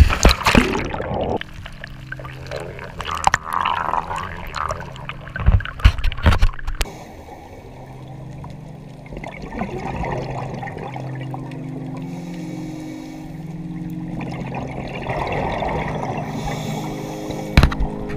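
A scuba diver's entry splash into the sea, then underwater gurgling and bubbling from exhaled scuba bubbles, with several loud bubble bursts about five to six seconds in.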